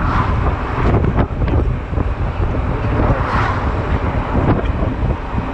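Honda Silver Wing scooter on the move: steady wind buffeting on the camera microphone over engine and road noise, with a few faint clicks.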